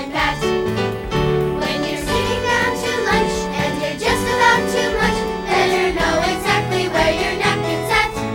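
Children's sing-along song: singing over instrumental backing music.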